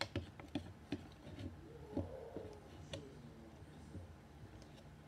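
A thin stick stirring a mixture in a small container, making faint, uneven taps and scrapes against the sides.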